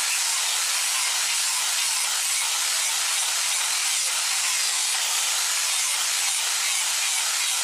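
Handheld electric grinder running steadily as it shapes a sonokeling (Indian rosewood) knife handle: a continuous high grinding hiss of the bit against the wood.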